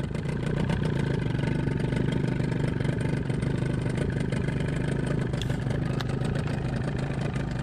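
Small outboard motor running steadily, pushing an aluminium tinny along the river.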